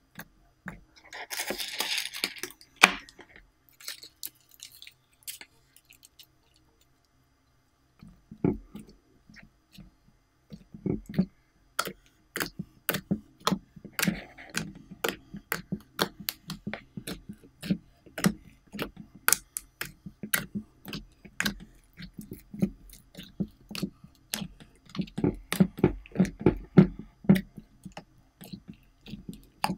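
Slime being pressed and squished by hand in a glass dish, giving a dense run of wet clicks and pops, several a second, from about a third of the way in. A brief hissing squelch comes near the start, before a short quiet gap.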